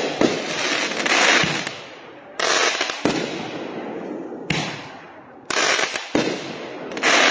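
Consumer aerial firework repeater cake firing shot after shot, about seven in all at roughly one a second. Each is a sharp bang followed by a fading rush of noise as the shell launches and breaks.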